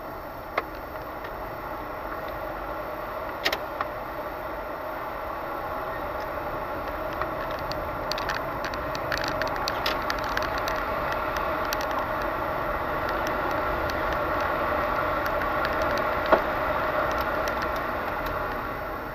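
Car driving slowly, heard from a dashcam inside the cabin: steady engine and road noise that swells a little and eases near the end, with a few sharp clicks or knocks.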